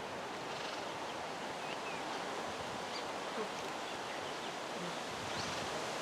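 Outdoor jungle ambience: a steady wind-like rustling hiss with faint, scattered high chirps from birds or insects.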